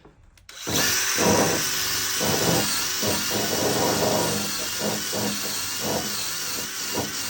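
Handheld power tool switched on about half a second in and run steadily to strip paint around a door handle: a loud, even hiss with a faint wavering whine, and uneven lower scrubbing pulses beneath it.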